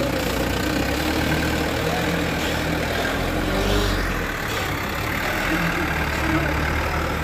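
Diesel engine of a loaded dump truck running at low revs as the truck creeps past, a steady low hum that swells slightly about four seconds in.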